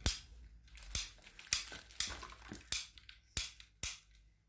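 Small hard plastic toys being handled, with a string of sharp, irregular clicks and clacks.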